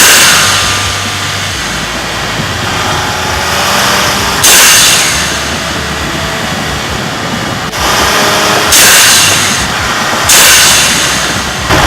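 Nissan GT-R's twin-turbo V6 under way on the road, with the Go Fast Bits T9202 blow-off valves, set fully open on stock trumpets, venting boost in loud sudden hisses that fade out, four times, at the start, a few seconds in, and twice near the end.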